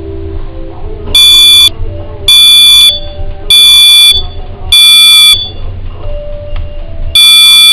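Smoke alarm sounding: loud, shrill electronic beeps about half a second long, coming about once a second. Four beeps, then a pause of about two seconds, then the beeping starts again at the very end.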